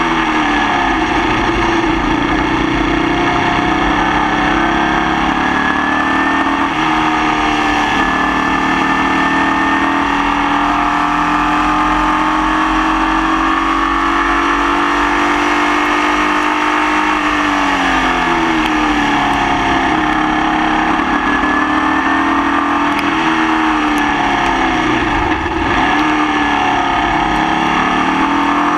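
Formula Vee race car's engine at racing speed, its pitch climbing slowly through long pulls and falling sharply about two-thirds of the way through, then climbing again. The engine has a nasty misfire.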